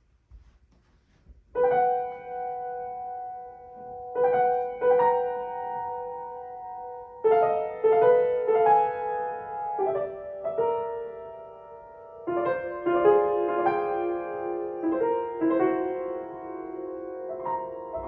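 Acoustic grand piano played solo. It begins about a second and a half in, with notes and chords struck in short groups and left to ring and fade.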